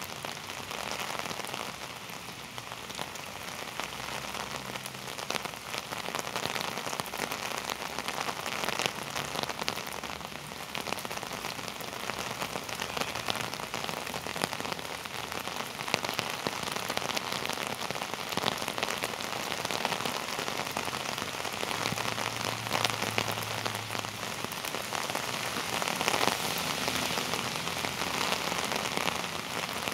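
Heavy rain falling steadily, with many sharp individual drop hits close to the microphone.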